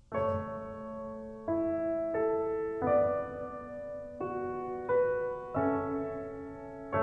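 Background music over the end credits: a piano playing slow chords, a new chord struck about every second and left to ring.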